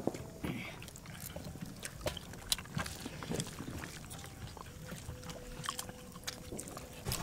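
Eating sounds: crunching and chewing of crispy breadcrumb-coated mushroom fry eaten by hand from a banana leaf, heard as scattered short crisp clicks and snaps.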